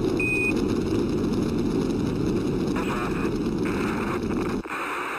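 Steady low rumble of a Saturn V rocket's first-stage engines in an archival launch recording, with a short high beep near the start. The rumble cuts off abruptly about four and a half seconds in.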